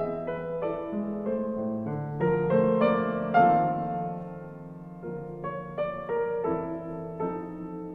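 Background piano music, gentle chords and melody played at a slow pace, with a softer passage around the middle.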